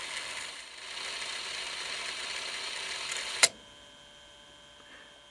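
Sony TC-W365 cassette deck rewinding a tape with a steady whirr from its plastic transport mechanism. About three and a half seconds in, a sharp click comes as the tape reaches its end. After that only a faint hum remains, because the deck has no auto-stop on rewind and stays in rewind.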